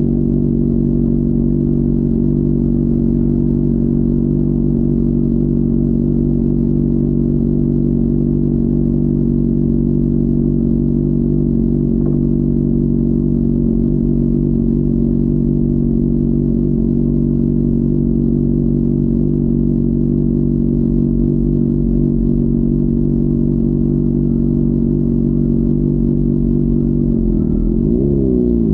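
Honda CBR600RR inline-four engine running steadily at constant revs. Near the end the engine note dips and climbs again as the revs change.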